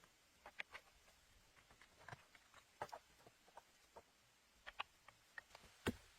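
Irregular light clicks and taps, a dozen or so scattered over a very quiet background, with one sharper knock near the end.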